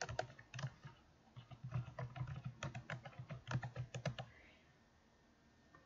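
Typing on a computer keyboard: a quick, uneven run of key clicks that stops a little past halfway.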